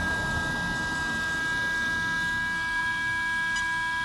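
Small electric cooling fan on an RC truck's brushless motor heat sink, running with a steady high whine. A low rumble underneath fades about halfway through.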